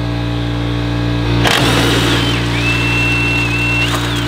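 Impact wrench running on a Ferrari 360 engine-mount nut, starting about a second and a half in: a high motor whine that drops in pitch as the tool loads up, then climbs back near the end as the nut breaks free. A steady low hum runs underneath throughout.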